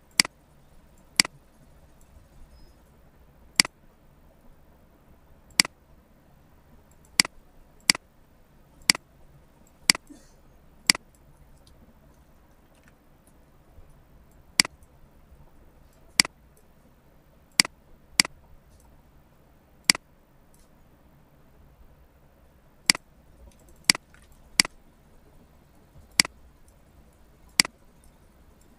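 Computer mouse button clicking, about twenty single sharp clicks at irregular intervals, a second or more apart.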